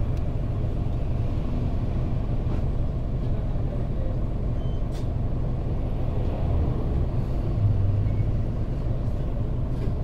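Mitsubishi Fuso KL-MP35JM city bus's 6M70 naturally aspirated 12.9-litre inline-six diesel running, heard from inside the bus as a steady low rumble that swells briefly about eight seconds in.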